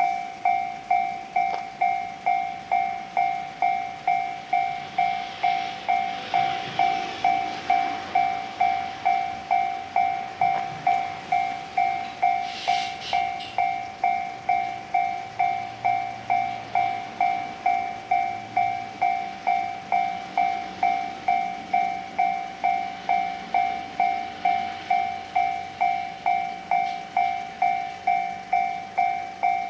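Japanese railway level-crossing warning bell ringing, an evenly repeating ding about one and a half times a second, each one striking sharply and fading: the crossing is signalling an approaching train.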